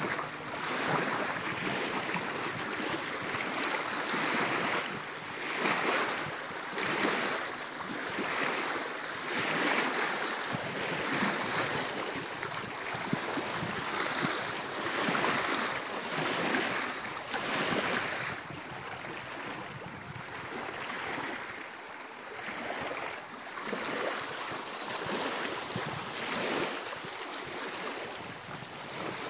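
Water splashing and sloshing around a kayak, rising and falling about once a second, with wind buffeting the microphone.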